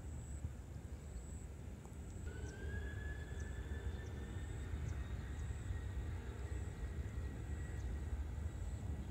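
Distant jet airliner's turbofan engines spooling up for takeoff: a low rumble, with a whine that starts about two seconds in and slowly rises in pitch.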